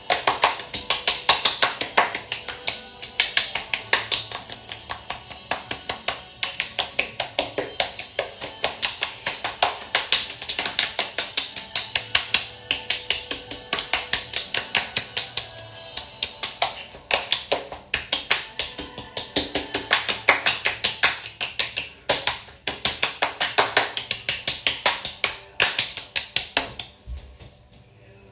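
Fingertips and palms patting and lightly slapping the face in quick runs of about four or five pats a second, with short pauses between runs.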